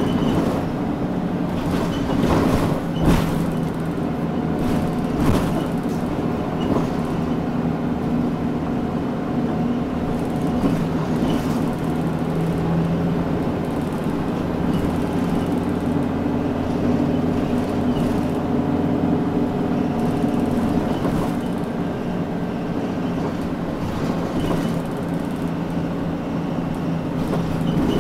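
Mitsubishi Fuso Aero Midi KK-MK27HM midsize non-step bus running between stops, its diesel engine and road noise heard from inside the cabin. The engine note shifts a few times as the bus changes speed, and a few sharp knocks from bumps or rattles come in the first several seconds.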